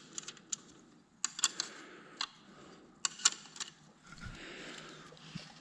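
Irregular light clicks and taps of hand tools against bolts and bracket hardware, a few at a time with short quiet gaps, as a tool is fitted to a bolt.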